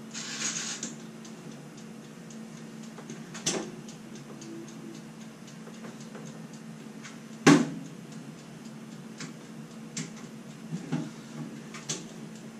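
Black & Decker toaster oven's mechanical timer dial ticking steadily after being turned on for a heat test. A short burst of hiss right at the start, a lighter knock about three and a half seconds in, and a sharp, louder knock about seven and a half seconds in.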